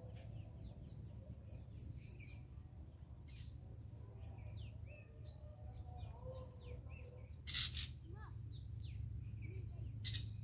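Small birds chirping with many short, quick notes over a steady low rumble and a thin high trill. A short, sharp noise stands out about seven and a half seconds in, and a smaller one near the end.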